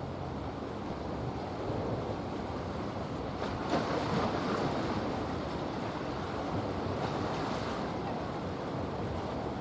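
Wind buffeting the microphone over the steady rush of sea water, with one brief louder gust a little under four seconds in.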